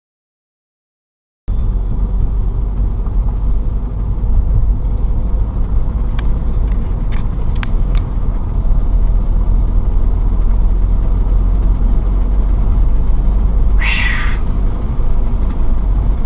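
Inside the cabin of a Volkswagen Golf GTI Mk7: the 2.0 turbo four-cylinder and the road make a steady low rumble at a gentle cruise, starting after about a second and a half of silence. A few faint clicks come midway, and a short hiss near the end.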